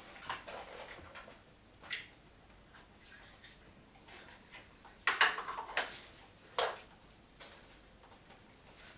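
Hard plastic clicks and knocks from a Dog Smart dog puzzle toy, its red board and bone-shaped lids being handled and set down. The loudest clatter comes about five seconds in, with a single knock about a second and a half later.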